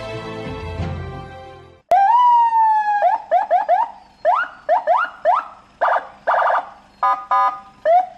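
An electronic vehicle siren, the Senken CJB100BD, cycling through its tones, after background music that cuts off about two seconds in. It gives one long falling wail, then a run of quick rising chirps, two buzzy horn-like blasts, two short beeps, and more chirps.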